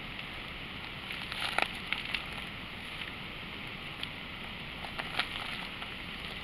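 A few light clicks and knocks of small carburetor parts being handled, wiped with a rag and set down on a plastic drain pan: a cluster about one and a half seconds in, and single ones near four and five seconds. Under them, a steady hiss of outdoor background noise.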